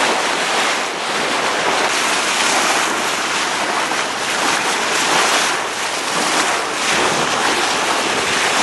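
Steady rush of sea water along the bow of a boat under way, mixed with wind noise on the microphone.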